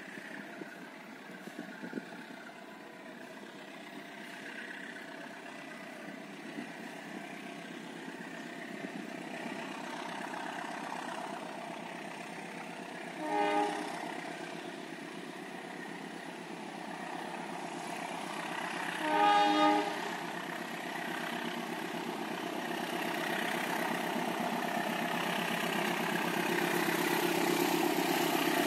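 Diesel-locomotive-hauled passenger train approaching, its rumble growing steadily louder. The locomotive's horn sounds twice: a short blast about halfway through and a longer one of about a second some six seconds later.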